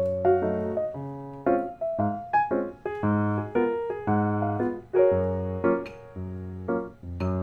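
Background music: a light, gentle piano-style keyboard tune, a melody of short decaying notes over a low bass line.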